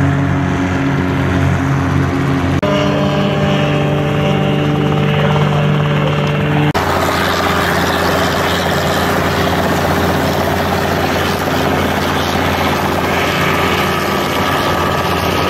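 Steady hum of small aircraft engines, changing abruptly about 3 and 7 seconds in. From about 7 seconds in, the engine and rotor of a single-seat open-frame ultralight helicopter run steadily close by as it sits on the grass and lifts off.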